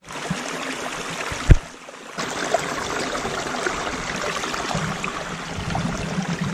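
Shallow creek trickling and rushing over rocks, a steady sound of running water. A single low thump about a second and a half in.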